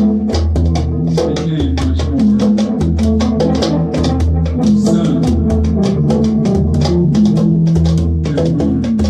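Instrumental band music with a steady drum beat, a bass line and plucked string notes.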